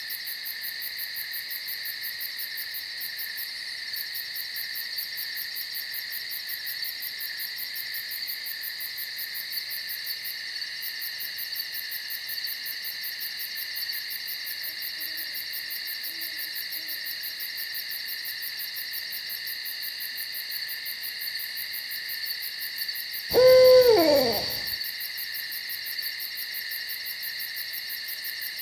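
Steady, fast-pulsing chorus of night insects. Near the end an owl gives one loud hoot of about a second and a half, falling in pitch; a much fainter call is heard about halfway through.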